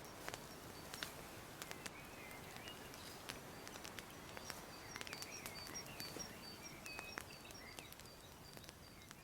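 Birds chirping faintly over a steady outdoor background hiss, with a run of short high notes in the second half and a few scattered light ticks.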